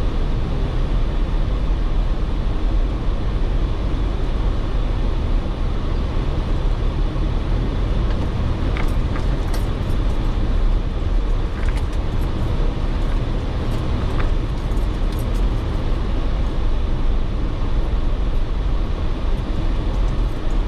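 Jeep Wrangler running and driving over off-road terrain: a steady low rumble of engine, drivetrain and tyres, with a few short clicks and rattles in the middle.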